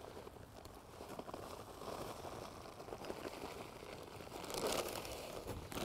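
Plastic sack of damp loam rustling and crinkling as it is handled and tipped over a foot hole, loudest about four and a half seconds in.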